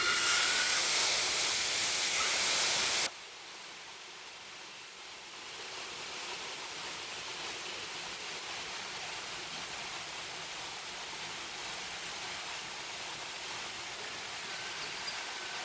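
Wheat pouring out of a hopper trailer's partly opened bottom gate, a steady rushing hiss as grain is dumped off to bring the load down to weight. It drops sharply in level about three seconds in, then carries on steadily.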